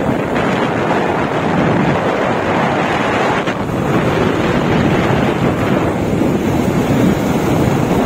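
Loud, steady wind buffeting on the microphone from riding along a road at speed, a continuous rushing noise with no break.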